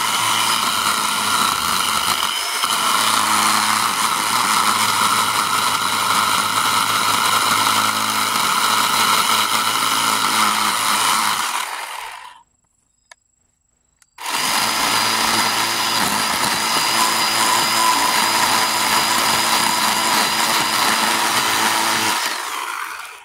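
Craftsman V20 cordless 10-inch electric chainsaw cutting into a hardwood stump with a dull chain. It runs in two long cuts of about twelve and eight seconds, with a short pause between them.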